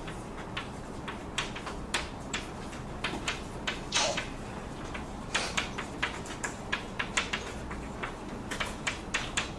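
Irregular light clicks and taps, roughly a couple a second, over a steady room hiss, with one slightly longer scrape about four seconds in.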